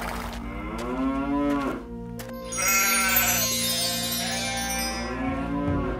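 Cows mooing: about three long moos, one after another, over a steady low musical drone.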